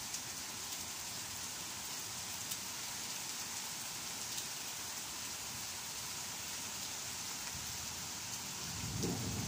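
Heavy summer rain falling steadily onto leaves, grass and pavement, with a few individual drop ticks. A low rumble of thunder starts near the end.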